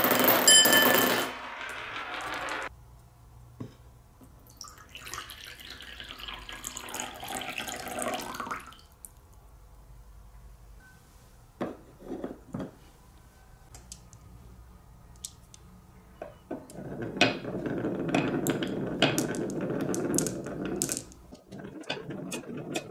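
Glass marbles rolling along a HABA wooden wave-slope marble run, rumbling through the curves in two long runs, one about 5 seconds in and one near the end. Near the start a glass bowl rings as a marble drops into it. Scattered clicks of marbles and wooden pieces being handled come in between.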